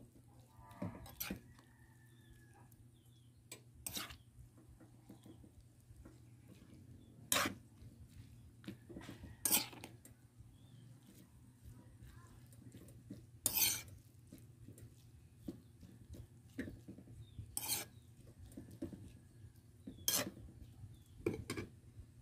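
Metal spoon scraping and clinking against an aluminium wok while stirring water spinach and pork: about eight short strokes a few seconds apart. A low steady hum runs underneath.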